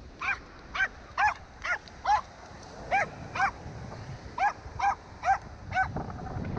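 A small terrier yipping at a freshly landed fish: about eleven short, high-pitched yips in quick runs of two to five, with brief pauses between runs.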